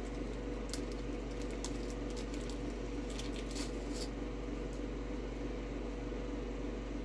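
Faint rustling and a few light clicks of small items being handled, over a steady low hum.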